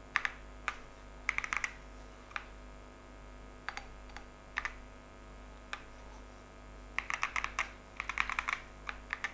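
Keys pressed on a Chilkey PAW65 65% mechanical keyboard with Pink Lotus linear switches: scattered single keystrokes and a few quick runs of presses, the busiest flurry near the end.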